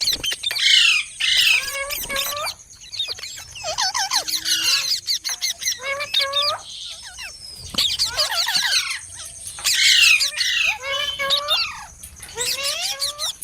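Parrot chattering and squawking without a break, a fast run of short calls that slide up and down in pitch.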